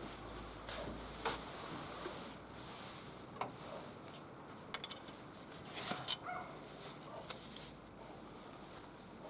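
Wood fire crackling in a barbecue grill, with scattered sharp pops and snaps, a quick cluster of them about five seconds in. A few short high animal calls sound about six seconds in.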